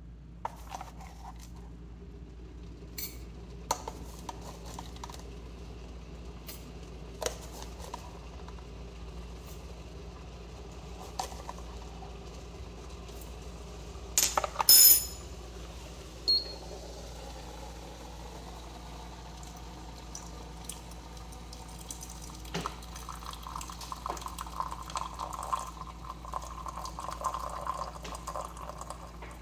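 Glass gong fu tea maker being handled: scattered light clicks, then a loud cluster of sharp glass clinks about halfway through. Over the last quarter, hot water is poured into the glass brewing cup and tea trickles in a thin stream into the glass pitcher below.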